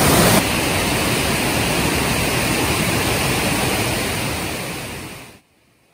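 Wide waterfall pouring over rocks: a loud, steady rush of water. It drops a little in level just under half a second in, then fades out about a second before the end.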